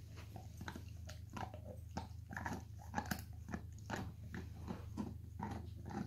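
Dog gnawing on a chew bone: irregular crunching and biting, a few strokes a second.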